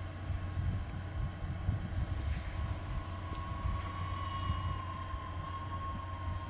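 FPV racing drone's motors whining in flight, heard from a distance as a wavering tone that comes in a couple of seconds in, over a steady low rumble.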